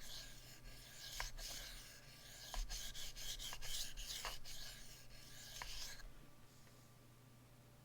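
Knife blade stroked back and forth on a Shapton 1000-grit whetstone: a run of scraping strokes with light clicks, stopping about six seconds in.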